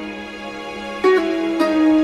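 Instrumental background music: soft sustained notes, quieter at first, with new notes coming in about a second in.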